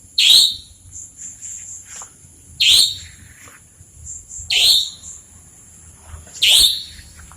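A bird calling four times at about two-second intervals. Each call is a short, sharp, high note that slides downward.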